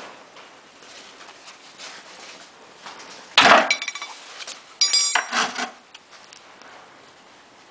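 Metal wrench and engine-oil drain plug clattering, with faint handling ticks. There are two loud metallic clatters, each with a brief ring, about three and a half and five seconds in.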